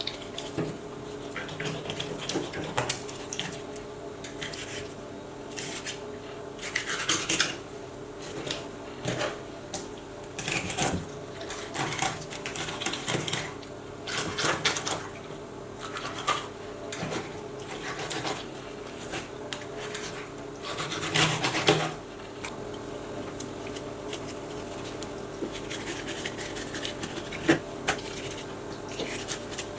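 Kitchen work sounds: irregular clatters, clicks and short scrapes of utensils and dishes over a steady hum, with a louder run of clatter about two-thirds of the way through.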